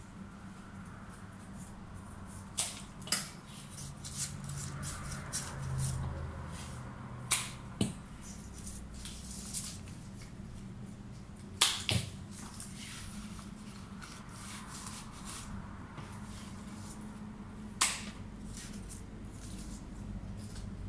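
Foliage being handled in a floral arrangement: leaves rustling, with about half a dozen sharp clicks or snaps from the stems, the loudest about two-thirds of the way through.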